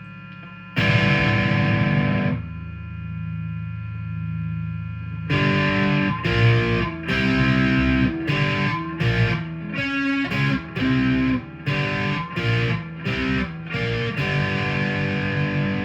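G&L Legacy Tribute electric guitar on its neck single-coil pickup, played through a Line 6 amp set to a modern high-gain distortion. A chord is struck about a second in, followed by a held low note. From about five seconds in comes a run of short notes and chords, ending on a ringing chord.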